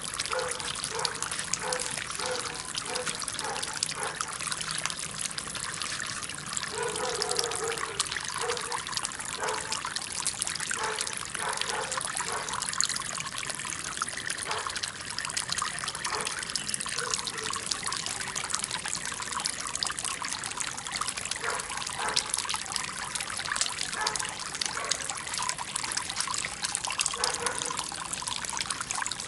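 Water trickling and splashing from a stoneware-jar fountain: a steady spill from the tall jar onto the jar below and into the small pond, with irregular bubbly plops.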